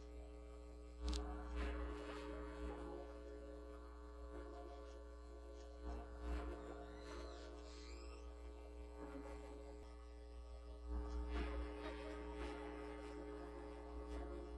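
A steady low hum made of several held tones, with a few soft thumps about five seconds apart.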